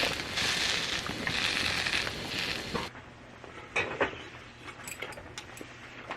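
A loud, steady hiss that swells and eases about once a second, cut off abruptly about three seconds in. Then scattered light clicks and knocks of utensils on dishes.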